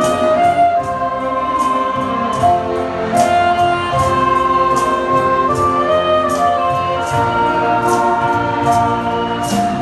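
Saxophone ensemble playing a slow melody in sustained, blended harmony over a steady light beat.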